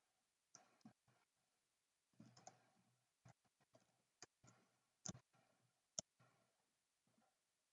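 Faint, irregular clicks of computer keyboard keys being typed, a dozen or so strokes.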